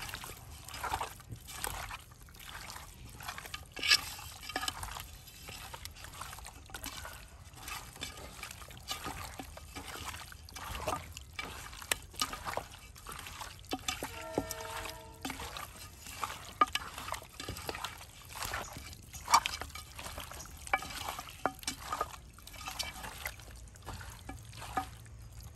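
Water trickling and pouring while something is handled in it, with scattered light clicks and knocks throughout. A brief pitched sound comes in about midway.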